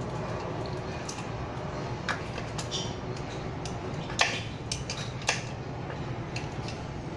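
About five light metallic clicks and taps, the loudest about four seconds in, as a small tool and the motor wires knock against the electric bike's frame while the wires are pulled through it. A steady low hum runs underneath.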